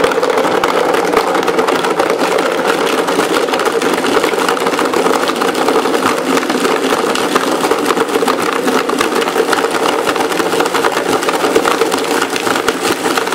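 Vitamix blender motor running steadily below its high setting, crushing ice cubes in lemonade, with a constant whine and dense rattling of ice inside the jar.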